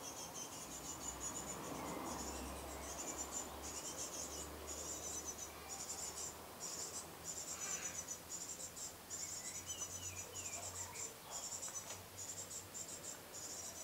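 Great tit nestlings begging from inside the nest cavity: a rapid, high-pitched chirring that comes in short bursts with brief breaks and keeps going.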